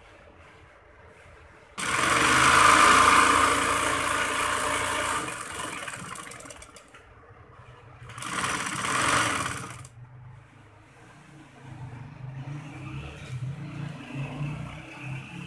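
Sewing machine stitching in runs. One loud run starts suddenly about two seconds in and dies away over several seconds, a shorter run rises and falls around eight seconds in, and a quieter, lower run follows near the end.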